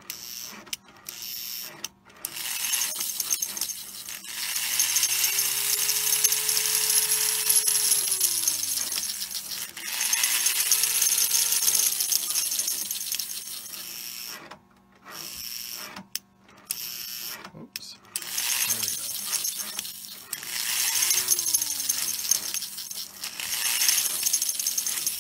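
Open-frame electric motor of a 1935 Lionel Red Comet toy locomotive test-run in the hand, with one pair of reused drive wheels fitted, whirring through its spur gears. It speeds up and slows down several times: one long run and then shorter bursts, each rising and falling in pitch. It runs without grinding or rumble, which the restorer takes as normal.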